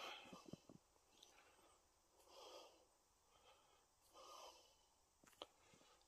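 Near silence, with two faint breaths about two seconds apart and a few light clicks.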